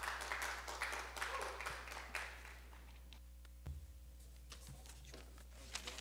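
Brief scattered applause from a small congregation lasting about two seconds, then a single low thump near the middle and quiet room tone with a steady low hum.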